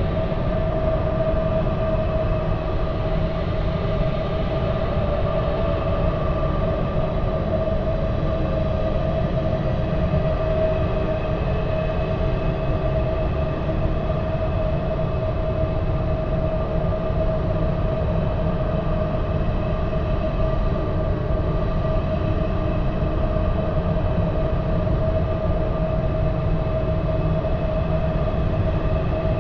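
Eerie supernatural ambience: a steady low rumble under a held mid-pitched hum, unchanging.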